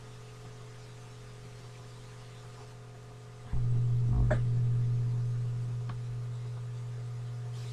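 Low steady electrical hum in the recording, which jumps much louder with a click about halfway through; a couple of faint clicks follow.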